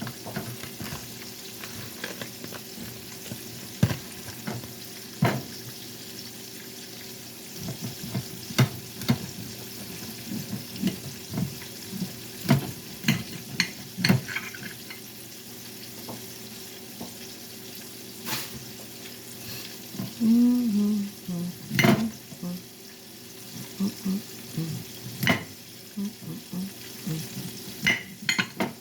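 Salmon frying in a pan, a steady sizzle throughout, with many scattered sharp knocks and clicks from kitchen work at the counter.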